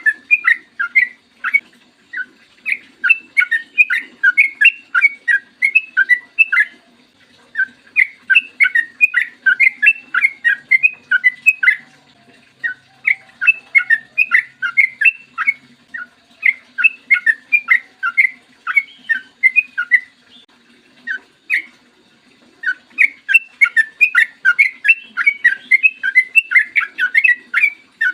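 Sooty-headed bulbul (trucukan) singing: rapid runs of loud, sweeping whistled notes, several a second, in phrases of a few seconds broken by short pauses.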